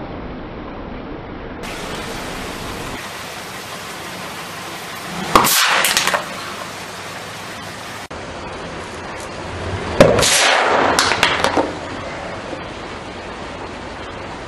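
An aerosol can of spray snow crushed under a car tyre, bursting with a loud pop and about a second of spraying noise. This happens twice, about five seconds apart, and the second burst is louder.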